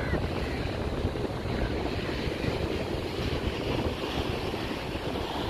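Wind buffeting the microphone in a steady, uneven rumble, over the continuous rush of surf breaking on a sandy beach.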